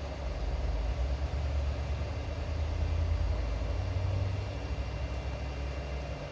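Hot air rework station blowing, a steady low rush of air that swells about a second in and eases off after about four seconds, heating a chip to melt its solder for removal.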